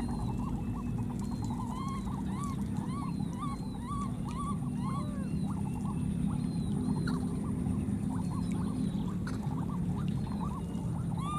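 Baby monkey repeatedly calling in short, rise-and-fall squeaks, about two a second, over a steady low rumble.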